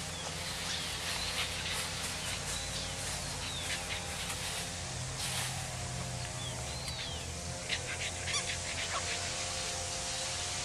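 A steady low hum, with birds chirping now and then and a French bulldog puppy mouthing and pushing a rubber toy, which gives scattered small clicks, several of them close together near the end.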